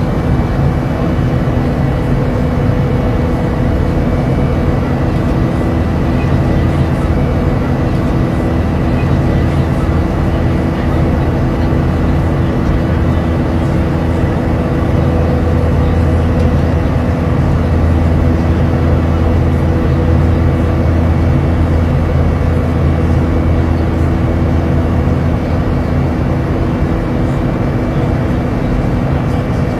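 Steady airliner cabin noise inside an Airbus A350: a constant rush of engine and air noise with a low drone and a few steady hums, the low drone swelling slightly midway.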